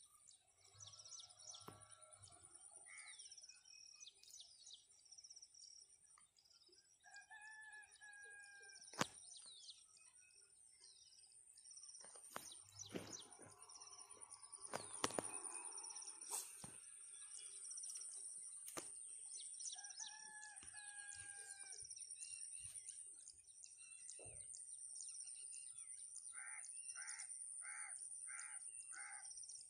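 Quiet outdoor bird chorus. Small birds chirp throughout, and a longer crowing call comes twice: about a quarter of the way in and again past halfway. Near the end a run of five short, evenly spaced calls sounds, all over a steady high insect hiss, with a few sharp clicks in the middle.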